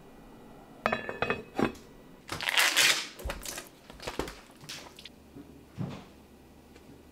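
Kitchen handling sounds: a lid clanks onto an enamelled cast-iron pot with a brief ring about a second in. Then comes a loud crackling rustle as a plastic pack of firm tofu is opened and drained over the sink, followed by a few light knocks and a dull thump near the end.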